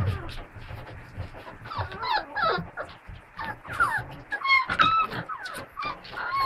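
Five-week-old puppies whining and yipping as they play, with many short calls that slide up and down in pitch from about two seconds in, amid short scuffling noises.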